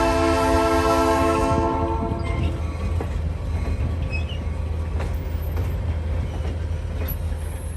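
Train horn sounding a held chord of several tones that cuts off about two seconds in, then the train rolling on with a steady low engine rumble and scattered clicks from the wheels on the rails.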